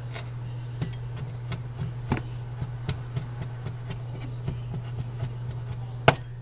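Chef's knife chopping fresh sage leaves on a bamboo cutting board: a quick, uneven run of sharp taps, about three a second, with a louder knock near the end. A steady low hum runs underneath.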